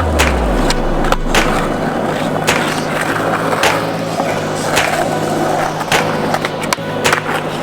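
Skateboard wheels rolling on concrete, with sharp clacks at irregular moments as the board strikes and lands. Background music plays underneath.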